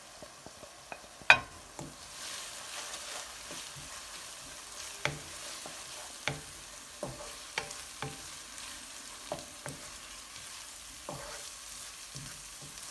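Chopped intestine stir-frying in a pan with onion and garlic: a sizzle that picks up about two seconds in, with a spoon knocking and scraping against the pan about eight times, the sharpest knock about a second in.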